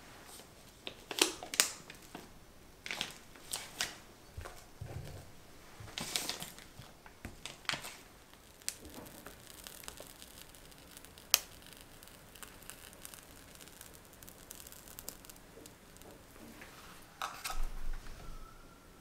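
Plastic piping bag crinkling and rustling as whipped cream is loaded into it with tongs and then piped, with scattered light clicks and taps. Near the end comes a short burst of plastic crinkling as a plastic sheet is set into a glass jug.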